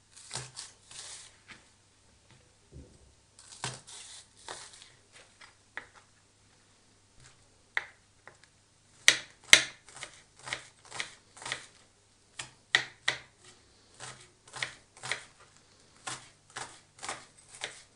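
Kitchen knife finely chopping green onions on a cutting board, each stroke a short sharp tap of the blade on the board. Scattered taps at first, then steady chopping at about two strokes a second from about halfway in.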